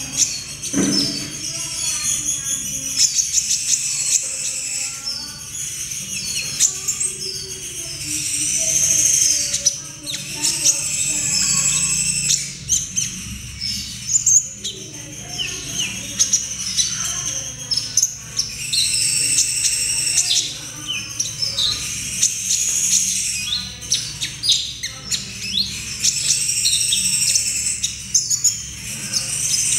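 Young sunbird (kolibri ninja) twittering steadily: rapid high-pitched chirps, short trills and repeated phrases with hardly a break. It is a juvenile practising its song. A faint low hum runs underneath.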